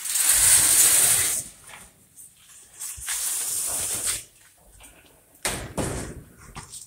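Steel-clad shed door scraping as it is pulled open, a rushing noise lasting about a second and a half, followed by two shorter rustling, scuffing noises.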